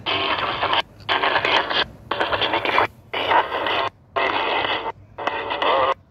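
Small uBon Bluetooth speaker playing a song streamed from a DZ09 smartwatch, thin-sounding and cutting out for a split second about once a second: the Bluetooth audio keeps dropping, so the song won't play continuously.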